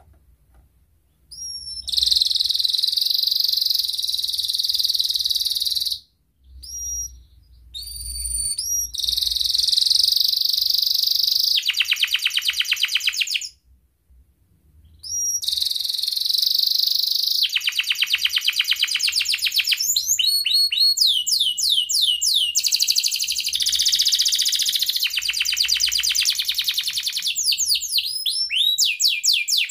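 Domestic canary singing long rolling trills and runs of fast repeated rising chirps. The song comes in phrases with two short pauses, then runs on without a break in the second half.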